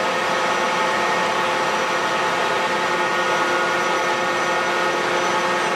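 A machine running steadily: an even drone with several constant whining tones and no change in speed.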